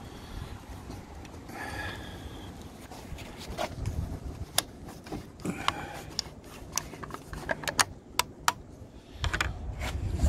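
Plastic motor-oil jug being handled and its screw cap worked: scattered sharp plastic clicks and scrapes, thickest in the second half, over a low rumble of handling noise.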